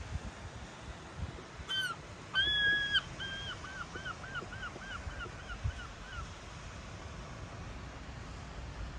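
A gull calling: a short note, then one long call about two seconds in, followed by a run of about ten shorter notes that fade away by about six seconds in. Wind rumbles on the microphone underneath.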